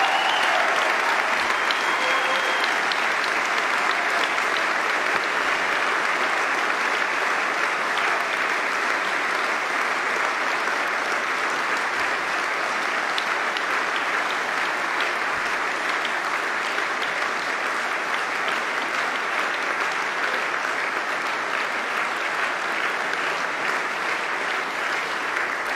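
A large crowd applauding steadily in sustained, dense clapping that eases off slightly toward the end.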